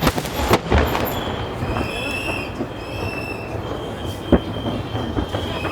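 Fireworks going off: several sharp bangs in the first second and another about four seconds in, with high, steady whistling tones from whistling shells.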